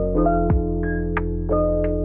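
Background music: soft synthesizer and electric piano chords with gentle plucked notes over them.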